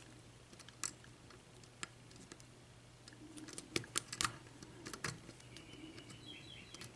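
Faint, irregular small clicks of a lock pick working the pins inside a pin tumbler lock held under tension, with a few louder ticks grouped around the middle.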